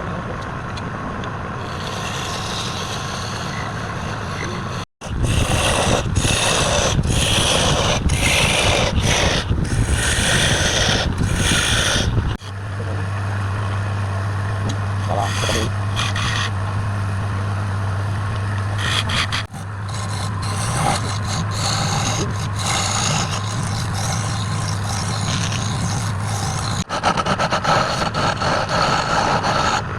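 Wood lathe running with a steady motor hum while a turning tool cuts and scrapes the spinning wood in rough, scratchy stretches. The sound breaks off abruptly and restarts several times.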